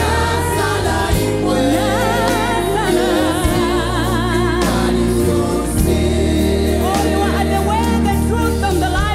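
Live gospel worship music: a woman lead singer and backing vocalists singing in harmony over a band, with notes held with vibrato over sustained low notes.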